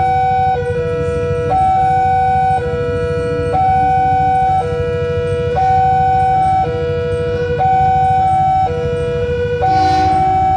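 Railway level-crossing warning alarm sounding: an electronic two-tone chime alternating between a higher and a lower note about once a second, over a steady low rumble. Near the end a diesel locomotive runs through the crossing, adding a louder rushing noise.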